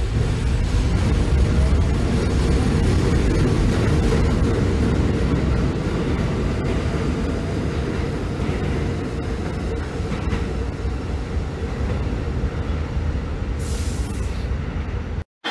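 New York City subway train of R46 cars running past a station platform: a steady rumble of wheels on rail with a faint hum, easing slightly as it goes. A short high hiss comes near the end.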